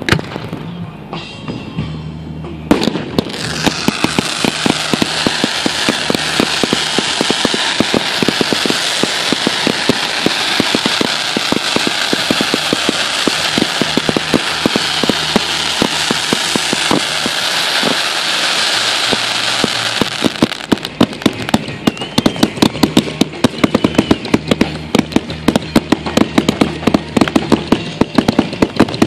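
Fireworks going off: after a few scattered bangs, a dense, steady hiss laced with crackling as streams of sparks rise. About two-thirds of the way through it turns to rapid sharp crackling pops, many a second, from crackling stars.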